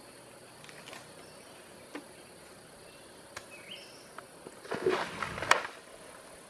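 Asian elephant handling and breaking banana stalks and leaves with its trunk: a burst of crackling and snapping about five seconds in, ending in one sharp snap. Behind it, a faint steady hum of forest insects with a few light clicks and short chirps.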